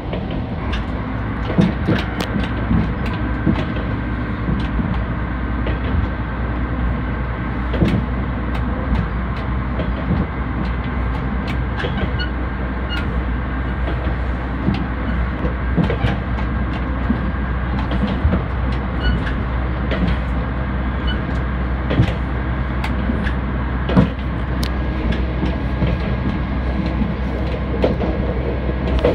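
Moka Railway diesel railcar running along the track, heard from inside the car: a steady engine drone under rolling noise, with the wheels clicking sharply over rail joints every second or two.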